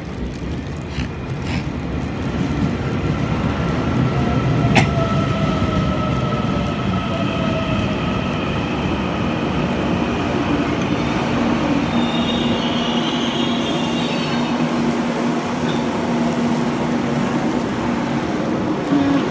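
Taiwan Railways Puyuma tilting electric multiple unit running into a station along the platform, its rolling noise growing louder over the first few seconds as it comes alongside. A thin whine runs over it, with a fainter tone sliding slightly down in pitch, and there is one sharp click about five seconds in. A steady low hum runs through the second half as the train slows.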